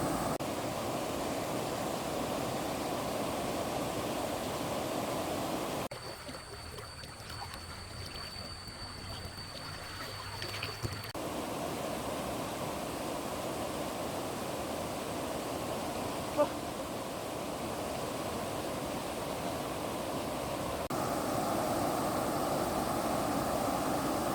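Fast-flowing stream water rushing steadily, the flow below a dam. About six seconds in it drops quieter for several seconds with a faint high whine, and a single sharp click comes about sixteen seconds in.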